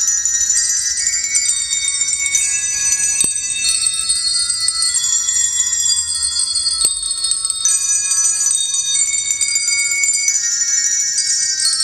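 Many handbells ringing at once in overlapping, sustained high tones, with new notes coming in every second or so. Two sharp ticks cut through, one about three seconds in and one about seven seconds in.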